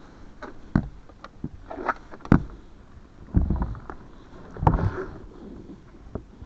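Scattered knocks, clicks and scrapes of car lockout tools working at a car door, with sharper knocks about a second, two and a quarter, and four and a half seconds in.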